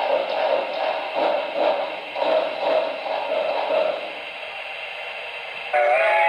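DCC sound of an HO-scale Broadway Limited Imports PRR T1 4-4-4-4 duplex steam locomotive model, played through the model's small speaker: steam exhaust chuffs, about three a second, fade out about four seconds in as the model stops, leaving a soft hiss. Near the end a chime steam whistle starts, several steady tones together.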